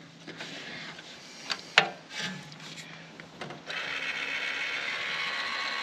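Electric linear actuator from a Walker mower's implement mount: a few sharp clicks, then about two-thirds of the way in its motor and ball screw start running with a steady high whir. The owner suspects worn-out balls in the ball screw.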